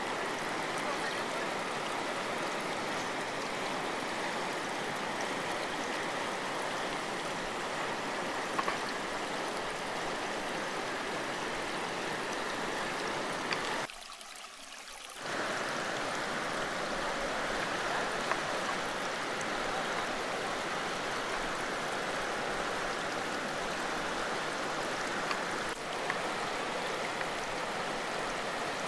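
Flooded river rushing over rocky rapids: a steady, full noise of churning water and breaking standing waves, which dips sharply for about a second about halfway through.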